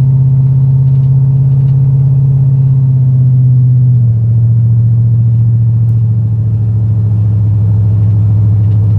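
LS V8 engine in a 1988 Ford Bronco, heard through its true dual stainless exhaust, running steadily under way as a loud, even drone. Its pitch drops a step about four seconds in.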